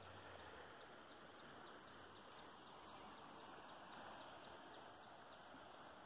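Near silence: the faint rush of a flooded river, with a bird giving a quick series of short, high chirps, each falling in pitch, that stops well before the end.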